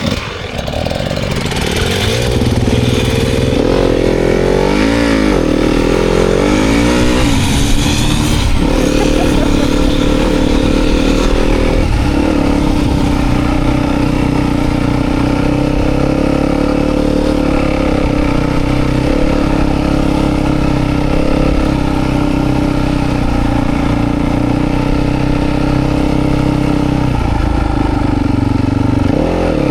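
Dirt bike engine under way, revving up and down over the first several seconds, then held at a steady pace for the rest.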